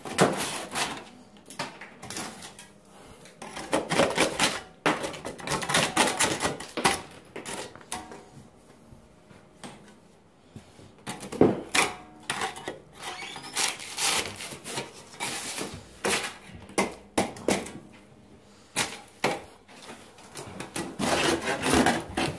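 Metal putty knife scraping loose plaster and old whitewash off a wall, in uneven bursts of rough scraping strokes with quieter pauses between.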